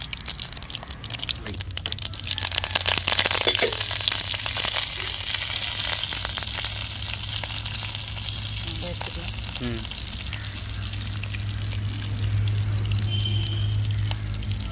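Tempering frying in hot groundnut oil in a steel kadai: mustard seeds and dried red chillies crackle and pop. About two seconds in the sizzle gets louder as fresh leaves go into the oil, then it settles into a steady frying hiss.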